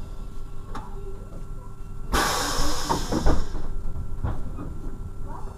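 Class 628 diesel railcar heard from the driver's cab, moving slowly with a steady low drone and a steady hum. About two seconds in a sudden loud hiss starts and fades over a second and a half, with a few knocks.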